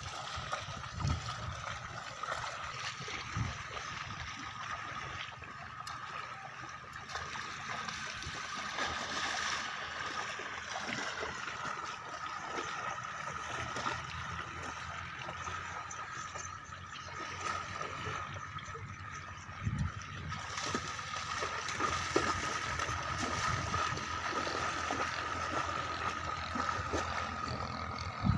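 Water buffaloes wading through shallow river water, with a steady sloshing and splashing from their legs and bodies and a few separate splashes. A faint steady high hum sits underneath.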